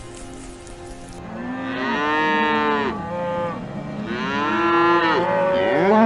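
A cow mooing: two long, loud calls, each rising and then falling in pitch, then a shorter rising call cut off at the end.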